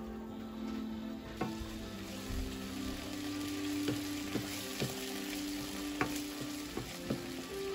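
Chopped onions sizzling in oil in a non-stick frying pan, with a wooden spoon stirring them and knocking on the pan now and then. The sizzle grows about a second and a half in, and soft background music with sustained chords plays under it.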